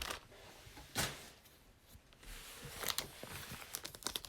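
Trading card packaging being handled: faint rustling with a sharp tap about a second in and a few light clicks near the end.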